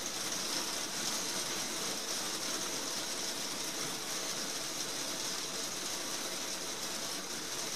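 Heavy rain falling steadily on a glazed roof: a dense, even hiss of countless drops, with no breaks.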